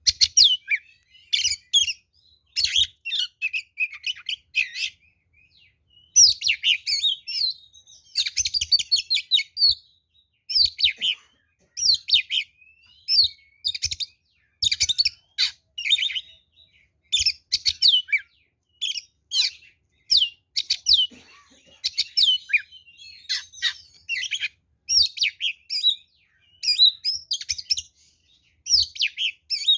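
Oriental magpie-robin (kacer) singing a loud, varied song in rapid phrases of chirps and whistles, each phrase a second or two long with short pauses between.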